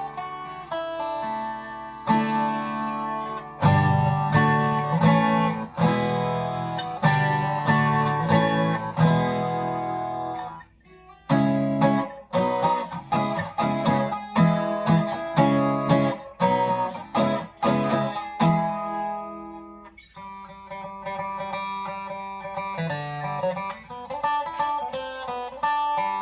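Martin GPC Special Koa X Series acoustic guitar with a high-pressure-laminate body, played: strummed chords with a short break about eleven seconds in, then softer picked notes near the end. The player rates its tone as no different from a well-made laminate guitar.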